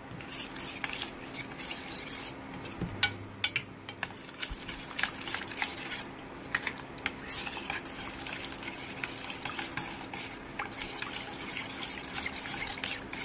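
Steel spoon stirring a watery chilli-and-spice paste in a stainless steel bowl, with quick irregular clinks and scrapes against the metal sides.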